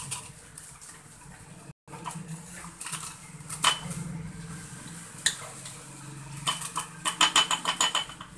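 Metal spoon clinking and scraping against a glass bowl as thick red icing-sugar paste is scooped into a piping bag, with a quick run of clinks near the end.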